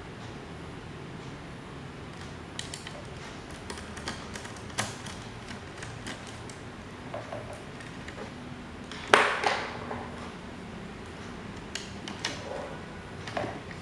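Scattered clicks and taps of the old desk fan's metal parts being handled, with one louder clank that rings briefly about nine seconds in.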